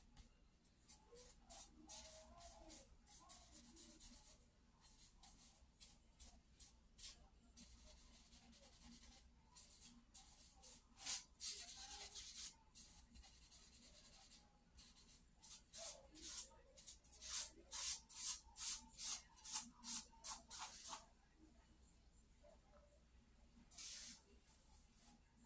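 Charcoal scratching across sketchbook paper in short hatching strokes, with a couple of longer strokes a little after 11 seconds and a quick, even run of about two strokes a second in the second half.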